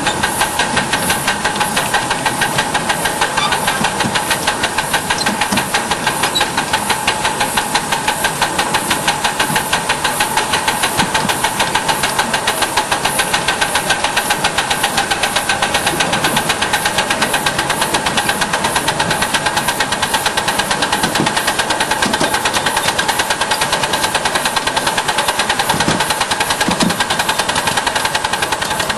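Ride-on live steam locomotive running, its exhaust chuffing in a steady, even beat over a constant hiss of steam.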